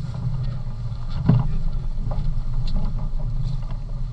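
A fishing boat's engine running steadily as a low hum, with a couple of short knocks about one and two seconds in.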